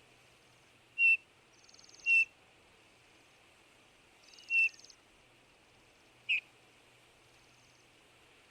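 Eurasian bullfinch calling: four short, soft piping whistles, spaced one to two seconds apart, each dropping slightly in pitch at the end. A faint rapid buzzing sits higher up behind two of them.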